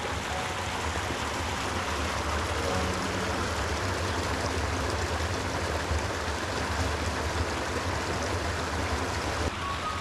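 Creek water rushing over rocks, a steady, even rush.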